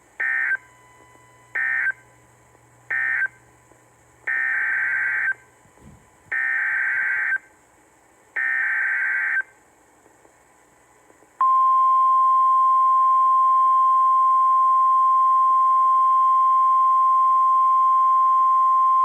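NOAA Weather Radio SAME data bursts, a warbling two-tone digital screech: three short end-of-message bursts, then three longer header bursts encoding the next alert, a severe thunderstorm warning. About eleven seconds in, the steady 1050 Hz weather radio warning alarm tone starts and holds.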